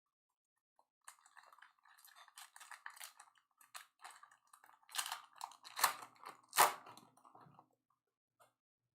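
Foil trading-card pack being torn open and the cards handled: a dense run of crinkling and small clicks, with a few sharp louder crackles in the middle, stopping about three-quarters of the way through.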